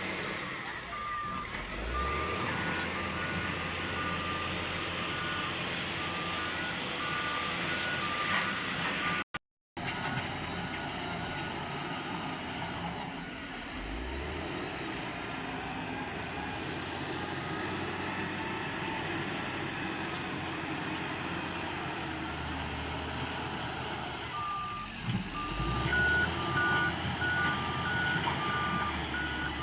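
Mahindra backhoe loader's diesel engine running under load while working, with a reversing alarm beeping in two alternating pitches for the first third and again near the end. The sound cuts out briefly about nine seconds in.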